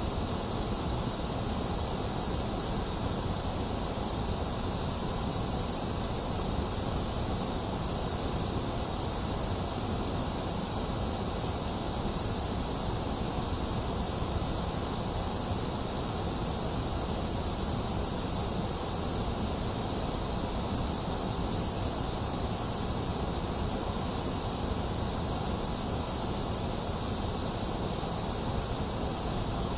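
Box fan running steadily together with falling rain: a constant, even rushing noise that does not change.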